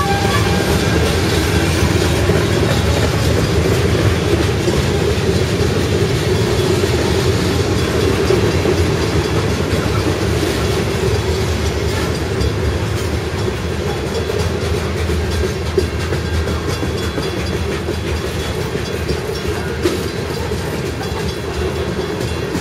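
Loaded covered hopper cars of a grain train rolling past, a steady rumble of steel wheels on rail with clickety-clack over the joints. Two sharp clanks stand out, about 16 and 20 seconds in.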